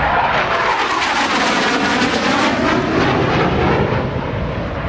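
AV-8B Harrier jump jet's Pegasus turbofan flying past, a loud, rushing jet noise whose tone sweeps and shifts as the aircraft goes by.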